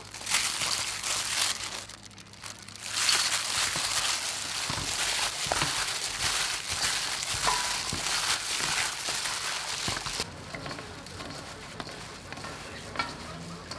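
Gloved hands mixing and rubbing seasoning into fish in a stainless-steel bowl: a rustling crinkle of thin plastic gloves against the wet fish. It comes in two spells, a short one at the start and a longer one from about three seconds in, easing off after about ten seconds.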